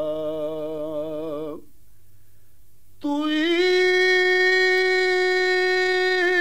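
Naat singing: a sung note with wavering vibrato fades out about a second and a half in, and after a short pause a voice takes up a long, steady held note.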